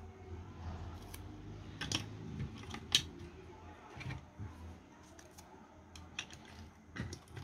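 Scattered light clicks and taps of metal tweezers and a plastic sensor housing being handled, as a small piece of tape is lifted from its backing and pressed onto the wiring inside.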